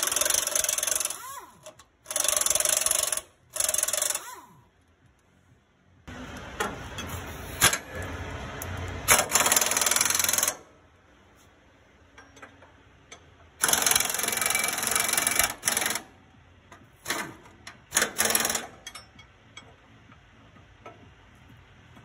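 Air impact wrench hammering in bursts of one to two seconds, several times over, with a few short rattles near the end, as it breaks loose and spins off the leaf-spring bolts on a truck's steer axle.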